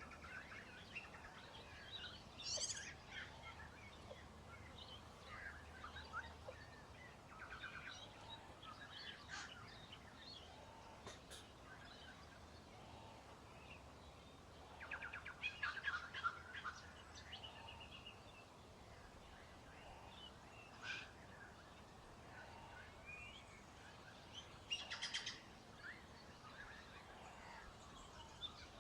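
Faint bird chirps and peeps in scattered short calls, with a louder cluster about halfway through and another near the end.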